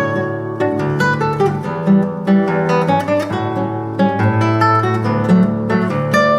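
Solo classical guitar, a 1965 José Ramírez concert guitar, playing a quick run of plucked notes over ringing bass notes.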